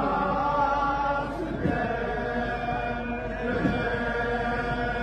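Zulu amabutho regiments chanting together in unison, many voices singing a slow chant with long held notes.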